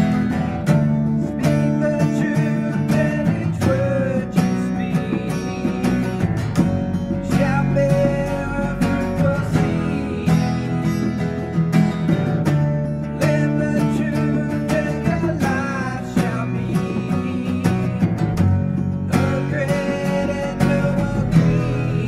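Acoustic guitar strummed steadily through a song, with a melody line wavering above the chords.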